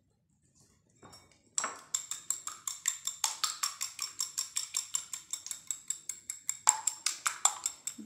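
A fork beating eggs in a glass bowl: rapid, even clinking of metal on glass, about six strokes a second, starting about a second and a half in.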